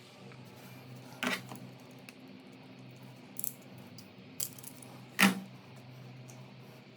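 Four sharp clinks and clicks of small hard parts or tools being handled, the loudest a little past five seconds in, over a low steady hum.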